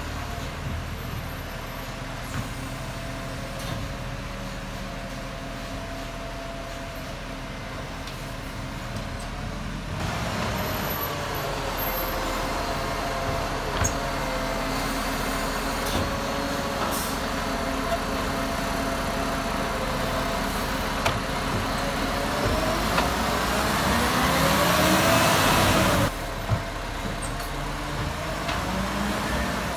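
Iveco Acco side-loading garbage truck's Cursor 9 diesel engine running, with a rising pitch for a few seconds near the end as it revs up, and a few brief sharp sounds.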